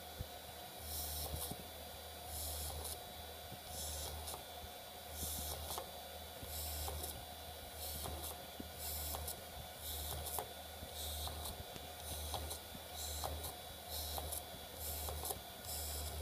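Homemade 12 V motor mini drill press running, drilling a row of small holes in a printed circuit board: a short burst of cutting hiss each time the bit goes through, about one every 1.3 seconds, around a dozen in all, with small clicks between.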